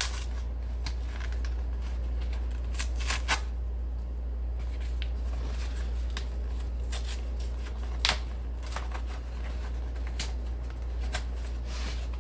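Cardboard record mailer being torn open by hand, with irregular ripping and scraping strokes, a few sharper tears among them. A steady low hum runs underneath.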